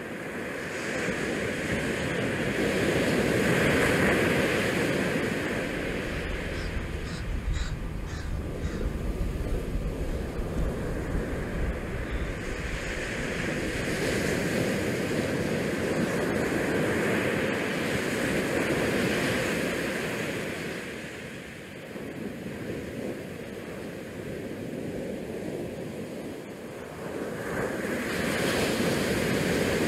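Churning white water of a cruise ship's wake and bow wash rushing alongside, with wind buffeting the microphone. The rush swells and eases every few seconds.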